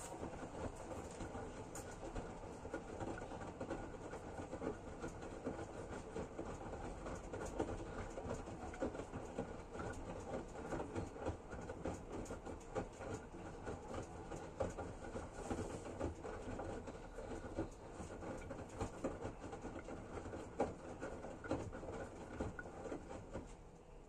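Front-loading washing machine in its wash cycle: the drum turns and laundry tumbles through soapy water, making a steady churning with many small irregular knocks and splashes. It falls away at the very end as the drum comes to rest.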